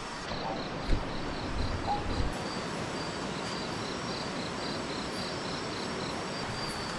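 Night insects calling: a high chirp pulsing about three times a second alongside steady high-pitched trills, over a constant rushing hiss of river water. A few soft low thumps come in the first couple of seconds.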